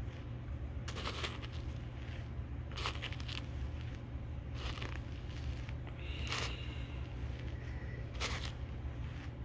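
Slicker brush raked through the fur trim of a parka hood: a scratchy brushing sound with each pass, the strokes coming a second or two apart.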